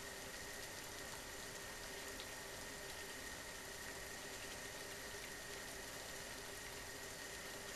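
Saucepan of water at 98–99 °C, just short of boiling, giving a steady faint hiss as it heats.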